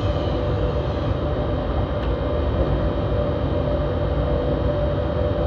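Running noise inside the cab of a class 193 Siemens Vectron electric locomotive on the move: a steady low rumble with a steady hum held through.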